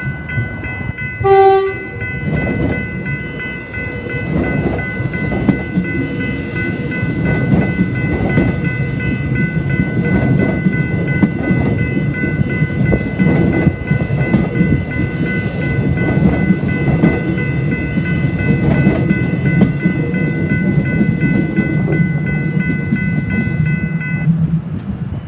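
Level crossing warning bell ringing in a fast, steady high pulse while a train gives one short horn blast about a second in, then passes over the crossing with a continuous rumble and wheel clatter on the rail joints. The bell stops near the end as the train clears.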